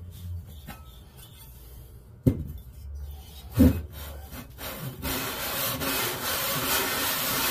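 Briggs & Stratton 5 hp cast-iron engine block set down on a steel bench with a clunk a little over two seconds in. From about five seconds in, its deck face is rubbed steadily back and forth on sandpaper laid flat, lapping the deck flat.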